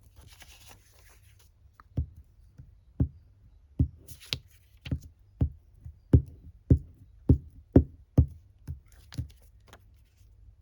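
A run of a dozen or so dull knocks on the tabletop, starting about two seconds in and coming faster and closer together toward the end.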